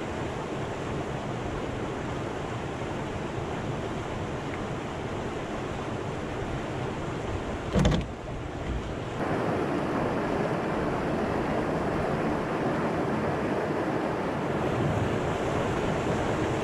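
Steady rushing of river rapids, a continuous even roar of white water. A single short thump about eight seconds in, after which the rushing is a little louder.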